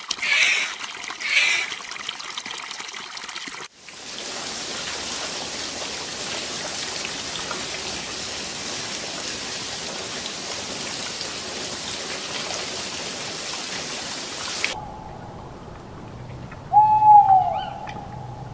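Water splashing, then a steady rush of water-like noise for about ten seconds. This cuts off abruptly to a quieter scene, where a single animal call sounds about two seconds before the end.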